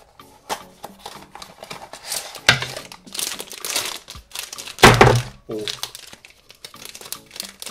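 Cardboard blind box being opened and its crinkly printed wrapper pulled out and handled, a run of irregular crinkling and rustling with the loudest burst and a dull thunk about five seconds in.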